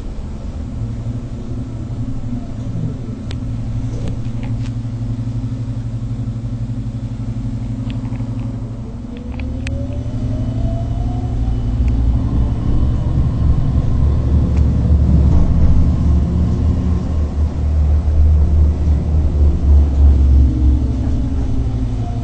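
Modern electric tram heard from inside while riding: a steady low rumble of the running gear, with the traction motors' whine rising in pitch as the tram accelerates about nine seconds in and falling again near the end as it slows. A few faint clicks sound over the rumble.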